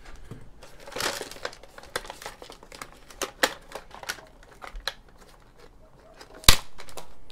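Irregular light clicks, taps and crinkling of plastic parts and wiring being handled inside an opened robotic vacuum cleaner's shell, with one sharp snap, the loudest sound, a little before the end.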